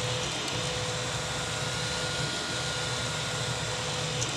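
3D printer's stepper motors whining as the toolhead sweeps back and forth over the bed during a rapid bed-mesh scan, over a steady fan hiss. The whine breaks off briefly at the turns, about every two seconds.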